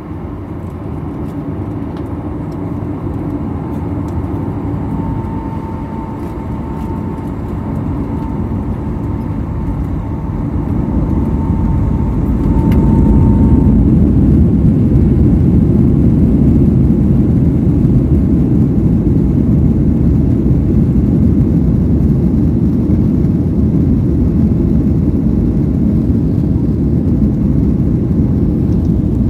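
Boeing 737-900ER's CFM56-7B jet engines heard from inside the cabin. A steady low rumble carries a thin high whine at first. About twelve seconds in the engines spool up to takeoff thrust, then run loud and steady as the jet starts its takeoff roll.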